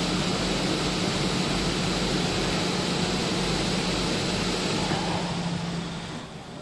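PP hollow corrugated sheet extrusion line running: a steady machine hum with a constant low drone under an even hiss, fading noticeably near the end.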